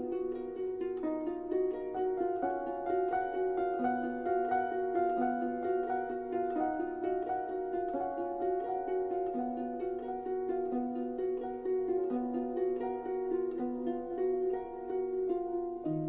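Instrumental music: a steady, quick run of plucked notes over held lower notes.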